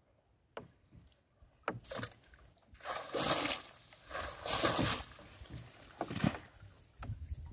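Wet fishing net being hauled in and shaken out over a small outrigger boat: three bursts of water splashing and spraying off the mesh, after a few short knocks against the boat.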